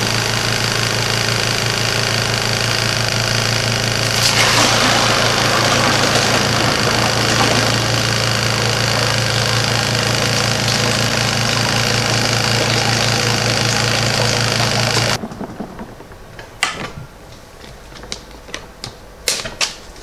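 KUPPET twin-tub mini washing machine's spin-dryer motor running with a steady hum, spinning water out of the washed clothes. It grows louder and noisier about four seconds in and cuts off suddenly about fifteen seconds in, followed by a few light clicks and knocks.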